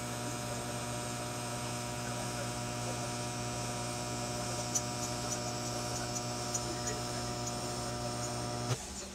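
Electric arc welding on steel: a steady buzzing hum with a few sharp spatter pops in the middle, cutting off suddenly about eight and a half seconds in as the arc is broken.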